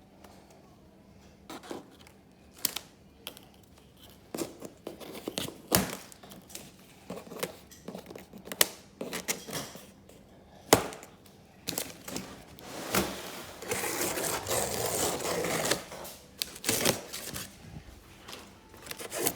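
Cardboard packaging being opened and handled: scattered clicks and knocks of flaps and packing pieces, with a longer tearing, scraping stretch about two-thirds of the way through.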